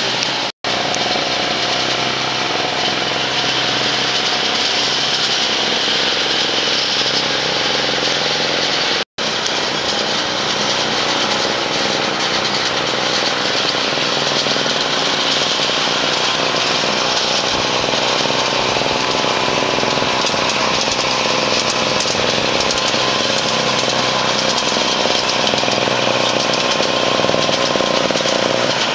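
Small petrol engine of a ride-on model gasoline locomotive running steadily as it hauls passengers round the track. The sound drops out briefly twice.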